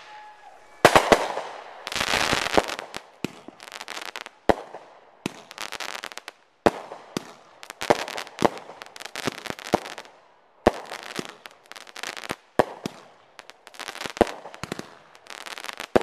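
Aerial fireworks bursting overhead in quick, irregular succession: a rapid run of sharp bangs, some close together, with stretches of crackling between them.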